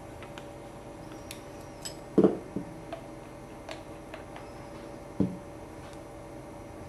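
Small metallic clicks and clinks of steel mandrel parts being handled, with two louder short knocks about two seconds in and about five seconds in, as an Allen key and then a small steel adapter are set down on a rubber mat.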